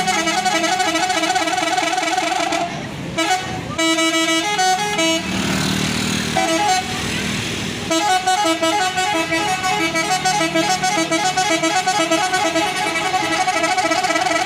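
Bus telolet horn, an Indonesian multi-tone musical air horn, playing a fast repeating tune of alternating high and low notes. The tune breaks off for a few seconds with a burst of rushing noise in the middle, then starts again and keeps going.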